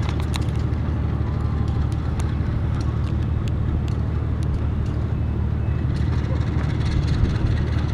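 Steady low rumble of passenger trains running in the distance, one hauled by a diesel locomotive, with a few faint clicks over it.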